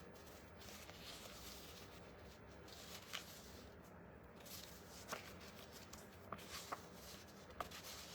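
Faint handling of small paper sheets, mini journal papers being shuffled through, with a handful of soft ticks of paper against paper spread through.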